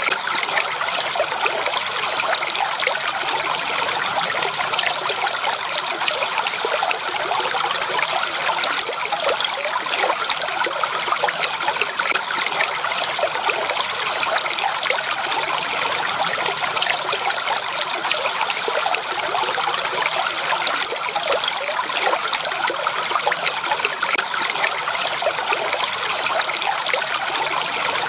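Stream water trickling and babbling steadily, with no letup or change.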